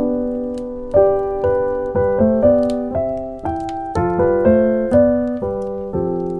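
Solo piano playing a slow, gentle classical-style melody, with notes and chords struck about every half second and left to ring out. Faint fireplace crackles sit beneath.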